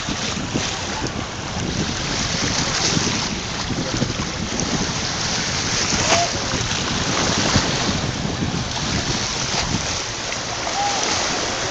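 Wind buffeting the microphone over the steady wash of the sea, with irregular gusty thumps.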